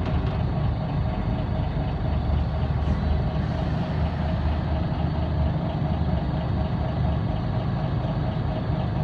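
Scania L94UB Wright Solar bus's diesel engine running steadily at low revs, heard from inside the passenger saloon.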